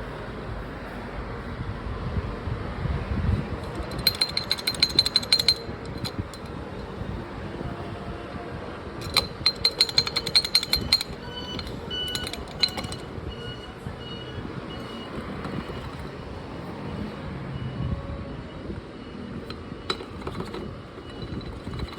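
SYM Z1 scooter's CVT drive running with an abnormal rattle from the front pulley (variator): two spells of rapid metallic clattering, about four seconds in and again about nine seconds in, over the steady running sound.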